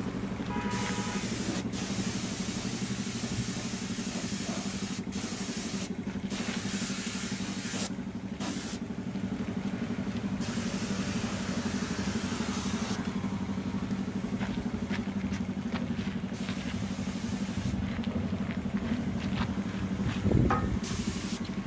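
Compressed-air paint spray gun hissing in repeated bursts of one to three seconds as the trigger is pulled and released. A steady low motor hum runs underneath.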